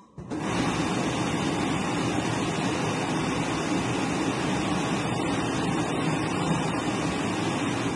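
Blower of a Battistella Circe pneumatic shirt-finishing mannequin (2.25 kW fan) rushing air through the shirt. It is a steady, loud whoosh that starts sharply and cuts off near the end.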